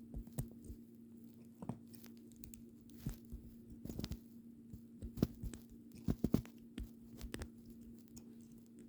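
LEGO Technic plastic pieces clicking and snapping as they are handled and pressed together: irregular sharp clicks, some in quick clusters, over a steady low hum.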